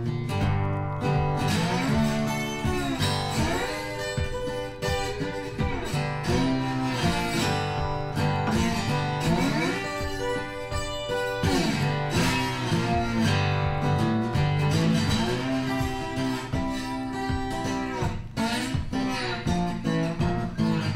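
Background music: guitar with plucked and strummed notes, some of them sliding up and down in pitch, over a steady beat.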